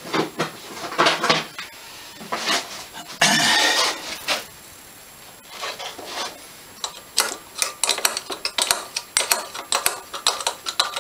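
Metal clinks, scrapes and rattles of a 10 mm spanner and metal engine parts as the nuts holding an inlet manifold flange to a Honda GX160 cylinder head are done up, with a quick run of clicks in the second half.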